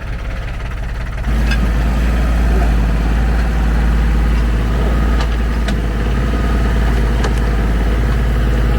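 Ford 1520 tractor's three-cylinder diesel engine running, stepping up to a louder, steady higher throttle about a second in as the backhoe is put to work, with a few light knocks.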